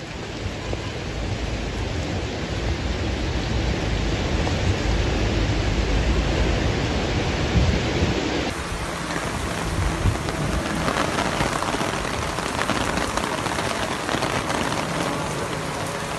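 Heavy rain and floodwater rushing through a street, a steady loud hiss with a low rumble underneath. About eight seconds in the sound shifts to a different recording of the same downpour.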